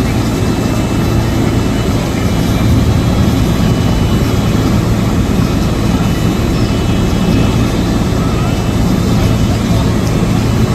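Steady, loud engine rumble with a few faint, steady high tones above it. No single knock or bang stands out.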